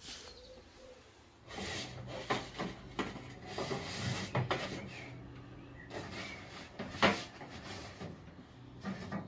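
Irregular scraping and rubbing by hand, a run of short strokes starting about a second and a half in, over a faint steady low hum.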